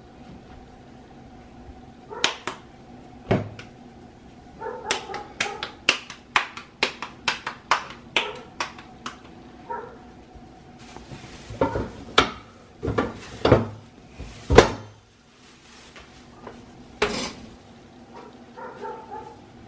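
Tortilla press and its plastic sheet being handled while masa is pressed into gorditas: a quick run of sharp clicks and taps, then plastic crinkling and a loud knock about halfway through.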